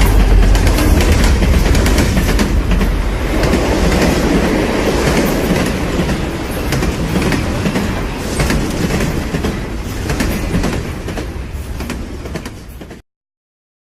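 Heavy rolling rumble with a dense run of rapid clacks, like a vehicle running over joints. It grows gradually fainter, then cuts off abruptly near the end.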